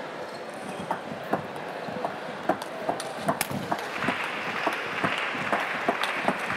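Table tennis rally: the celluloid ball clicks sharply off the bats and the table about twice a second. From about four seconds in, crowd noise rises under the clicks.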